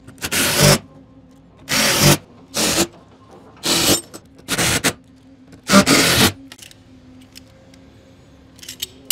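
Garage door section scraping and rubbing against the section below as it is shifted into line, in six short scrapes of about half a second each over the first six seconds.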